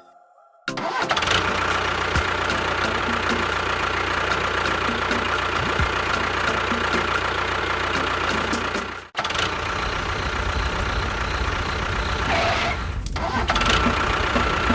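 A motor starts about half a second in and runs steadily. It cuts out abruptly about nine seconds in and picks straight up again.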